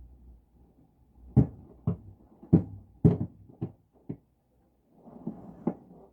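Tree branches banging against a frosted skylight in the wind: a run of six sharp knocks about half a second apart, fading, then softer scratching with one more knock near the end.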